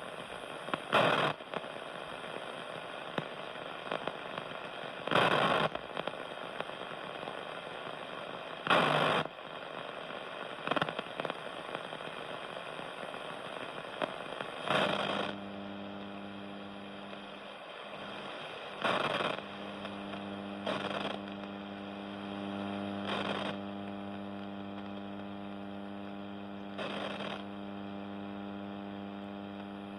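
Sony ICF-5500M shortwave radio's loudspeaker putting out hiss and static with no programme audible, broken by short crackling bursts every few seconds. About halfway a steady buzzing hum with overtones comes in and stays.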